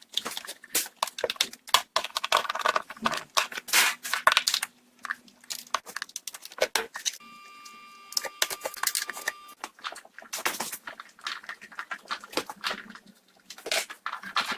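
Hand tools working on the strut's top mounting nuts: a run of sharp metallic clicks and clinks of wrench and socket, with a steady high whine lasting about two seconds in the middle.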